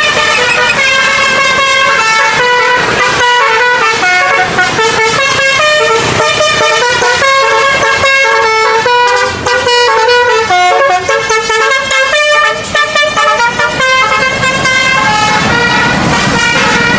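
Indonesian bus telolet basuri multi-tone air horn playing a melody: several horn tones sound together and step from note to note, breaking into a choppy run of short notes past the middle.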